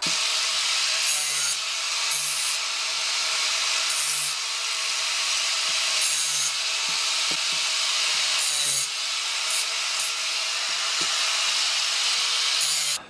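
Angle grinder with a cutoff wheel cutting through 1/8-inch steel flat stock: a steady, high, hissing grind that starts and stops abruptly, swelling briefly several times as the wheel bites.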